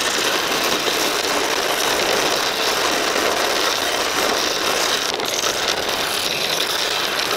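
Scroll saw running with a double-sided sandpaper strip in place of its blade, the strip stroking up and down inside a narrow cut in a thin wooden piece for detail sanding. Steady, even mechanical running noise.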